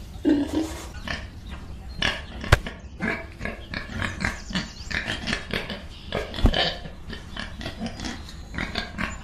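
Pigs grunting in a run of short calls, with two sharp knocks about two and a half and six and a half seconds in.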